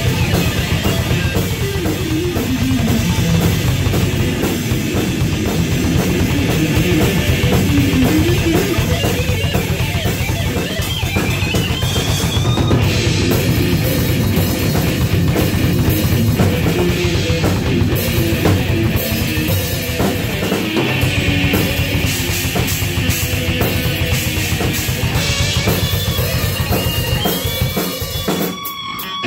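Improvised heavy metal jam: electric guitar and a full drum kit with cymbals playing together without a break.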